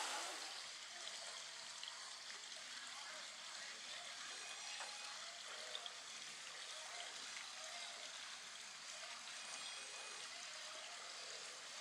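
Faint, steady trickle of water with indistinct distant voices.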